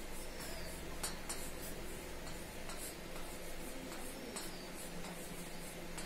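Chalk writing on a blackboard: short, irregular scratches and taps as the chalk forms letters.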